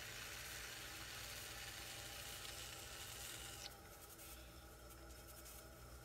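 Metal rib rubbing against the side of a clay bottle spinning on a pottery wheel, a steady scraping hiss that stops abruptly a little past halfway as the rib is lifted off. The wheel's motor hums low underneath throughout.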